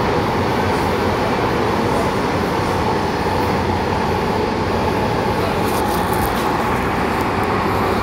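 MTR Tung Chung line A-train running at a steady speed, a continuous rumble of wheels on rail and traction motors heard from inside the carriage. A few faint high clicks come about six seconds in.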